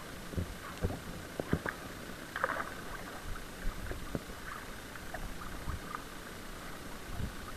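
Kayak paddle strokes in choppy sea water: short splashes and drips over a steady wash of water, with a cluster of sharper splashes and knocks in the first few seconds.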